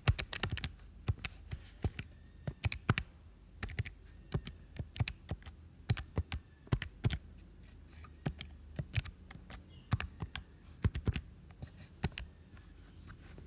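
Calculator keys being pressed: irregular runs of sharp taps and clicks as a sum is keyed in.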